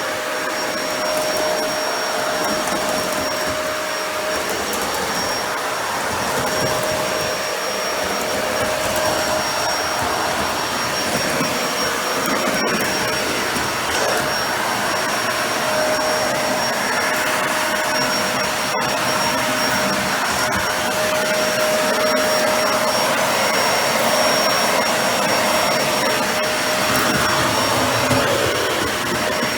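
Dyson Ball Animal 2 upright vacuum running steadily while vacuuming a bare floor: an even rush of air with a steady motor whine.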